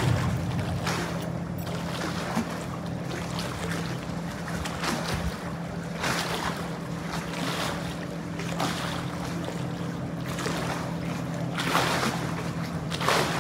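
Wind and water noise swelling every second or two over a steady low hum.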